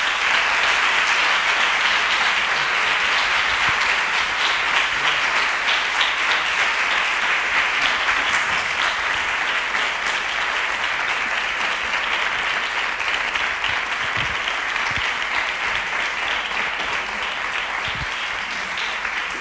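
Audience applause in a lecture hall: sustained clapping from a large seated crowd, easing slowly toward the end.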